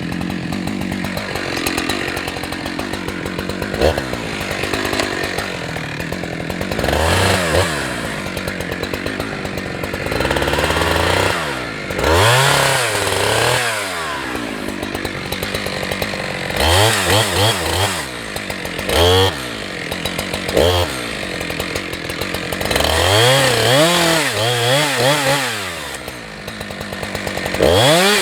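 Husqvarna 365 two-stroke chainsaw idling, then revved up and let back down to idle about eight times, the engine pitch sweeping up and falling each time.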